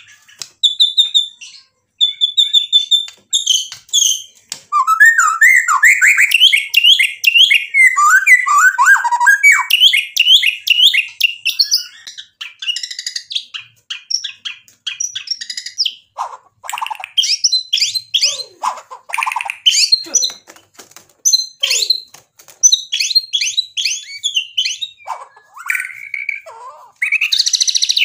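White-rumped shama (murai batu) singing a long, varied song: repeated high notes at first, then a dense run of fast chattering trills, then sharp separate phrases. It is a full song loaded with mimicked phrases of other birds (isian).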